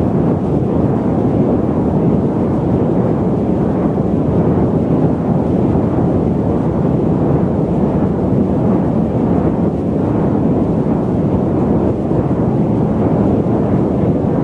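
Steady low rumbling noise of an airliner cabin in cruise flight, with no changes or distinct events.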